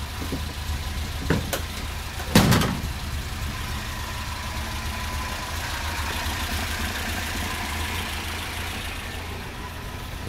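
Idling of a 1969 Alfa Romeo GT 1300 Junior's modified 2000 twin-cam four-cylinder engine, a steady low hum. There is a small knock just over a second in and a sharper, louder knock about a second later.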